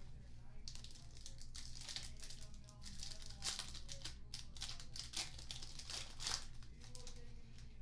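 Plastic trading-card pack wrappers crinkling and tearing in quick crackly strokes as packs are ripped open.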